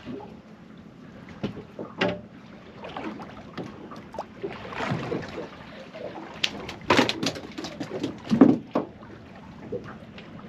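Handling noises aboard a small fishing boat as a fish caught on mackerel feathers is brought in: irregular knocks, scrapes and clatter, loudest in the second half.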